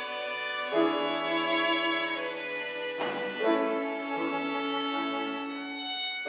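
Violin and cello playing slow, sustained notes in a classical chamber piece, with new notes entering about a second in and again around three seconds in.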